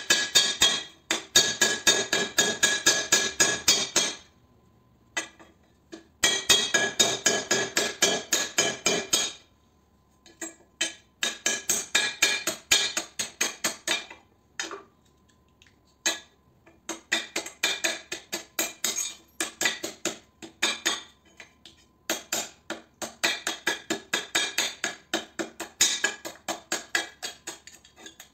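Hammer tapping rapidly on a small metal ballast part against a steel plate: quick runs of sharp, ringing metallic clinks, about five or six a second, broken by short pauses.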